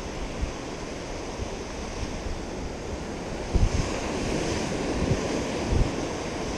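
Small ocean waves breaking and washing up a sandy beach in a steady hiss that swells about four seconds in. Wind on the microphone makes a couple of short low thumps.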